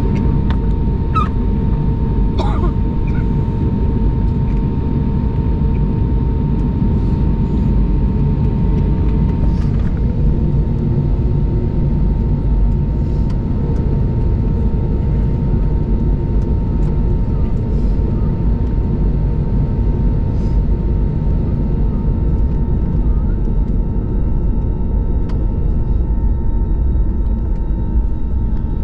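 Steady cabin rumble of an Airbus A321neo taxiing, its engines at low power, heard from inside the cabin over the wing. A thin steady tone runs above the rumble and stops about ten seconds in.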